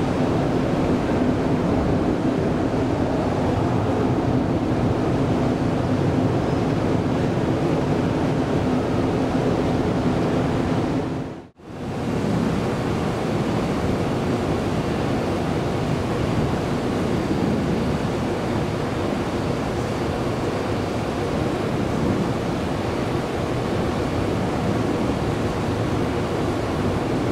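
Jet airliner engines running loud and steady, with a faint hum under the roar in the first part. The sound fades out briefly about eleven and a half seconds in and comes back just as loud.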